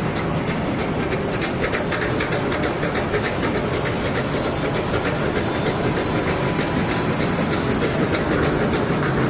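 Remote-control model construction machines running: a steady whir of small electric motors and gearing with a dense clatter of clicks throughout.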